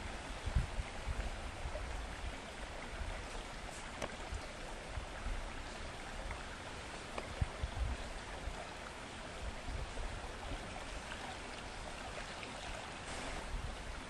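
Steady outdoor rushing background noise with a low wind rumble on the microphone that swells and falls. A few faint knocks from knife and bowl work on wooden boards.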